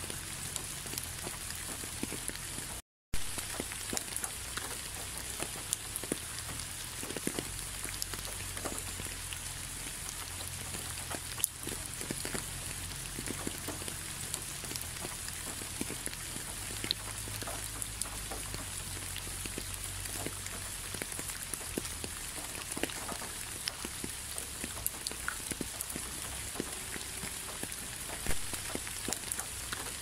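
Steady rain: a constant hiss with many separate drop hits scattered through it. The sound drops out completely for a split second about three seconds in.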